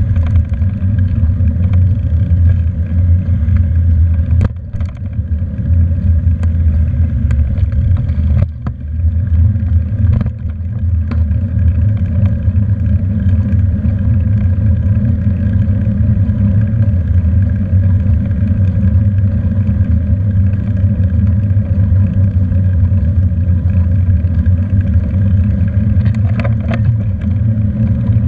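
Steady low rumble of wind and road vibration picked up by a handlebar-mounted camera on a moving bicycle, with a few brief knocks from bumps.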